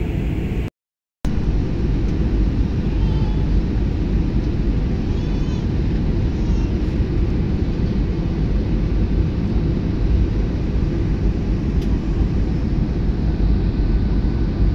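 Steady cabin noise of a jet airliner descending with flaps extended: engine and airflow rumble, heaviest in the low end. The sound cuts out for about half a second about a second in.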